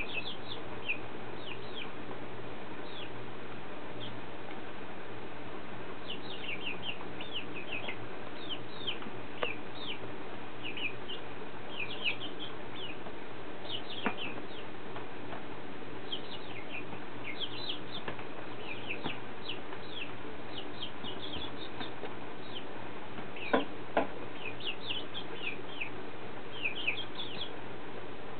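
Young, half-grown chickens peeping: a steady stream of short, high chirps that fall in pitch, several a second at times, over steady background noise. A couple of sharp knocks stand out near the end.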